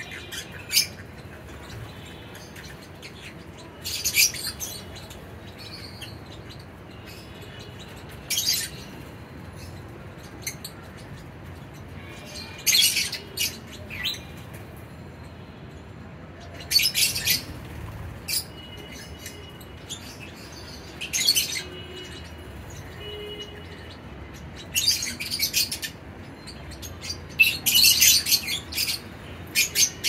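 Lovebirds giving shrill chirping calls in short clusters every few seconds, busiest near the end, over a steady low background noise.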